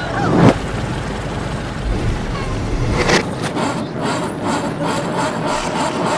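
A heavy thud about half a second in and a sharper knock about three seconds in, followed by a run of small clicks, over a steady mechanical rumble.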